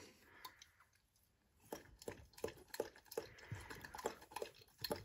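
Dalmatian lapping water from a bowl: soft wet laps at a steady rate of about three a second, starting a couple of seconds in after a near-silent moment.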